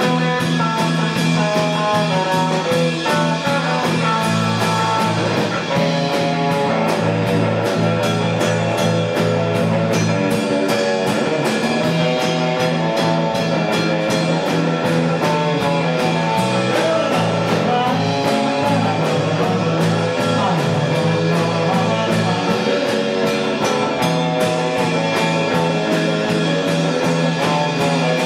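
Live honky-tonk country band playing: electric and acoustic guitars over bass and a drum kit keeping a steady beat.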